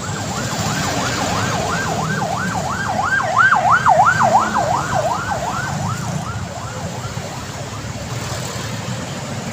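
Emergency vehicle siren passing on a busy road: a fast yelp sweeping up and down about three times a second, growing louder to a peak midway and fading away after about six seconds, over a steady rumble of traffic.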